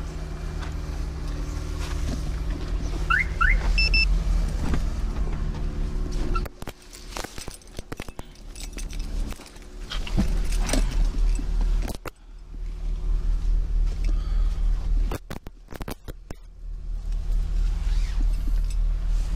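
Car engine idling steadily just after a remote start from the alarm system's key fob, a low even hum, with scattered sharp clicks and handling noises through the middle.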